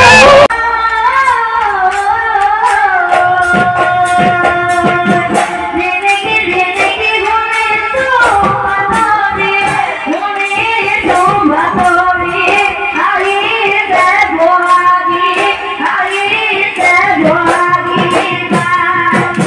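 An Assamese Bihu song: a female voice sings a wavering, ornamented melody over a steady, quick dhol drumbeat. A louder stretch of music cuts off abruptly about half a second in, and the song carries on from there.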